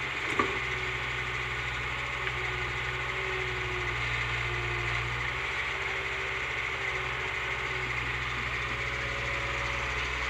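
Backhoe loader's diesel engine running steadily at low speed, with a single sharp click about half a second in.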